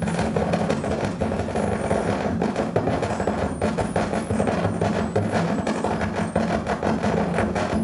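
Modular synthesizer played live: a dense, continuous electronic noise texture with a steady low drone and many rapid crackling clicks.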